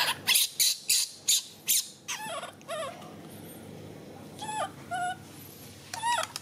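Baby macaque's high-pitched squealing begging calls, about three a second for the first two seconds, then a pause and a few more calls near the end: the infant crying to be given its milk bottle.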